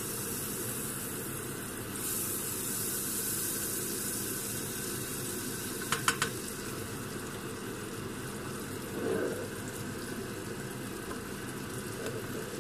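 Butter sizzling as it melts in a hot frying pan, a steady hiss that grows a little louder about two seconds in, with a few quick clicks of a spatula against the pan about six seconds in.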